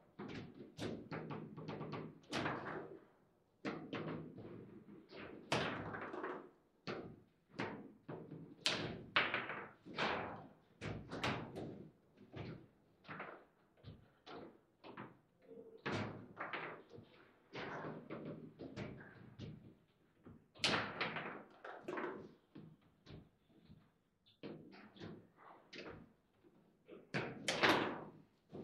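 Table football rally: the ball struck by the plastic players and banging off the table's walls, with the rods knocking and rattling, in quick irregular knocks and bangs. The loudest bangs come near the end.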